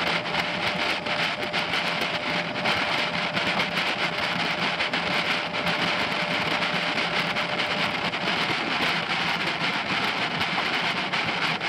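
Suzuki DF90ATL four-stroke outboard running steadily at cruising speed, with the rush of water past the canoe's hull and wind on the microphone.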